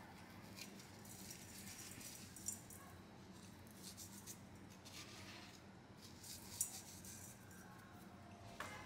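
Salt grains sprinkled by hand onto julienned carrots in a stainless steel bowl: a faint, scattered patter with a couple of sharper ticks, over a low steady hum.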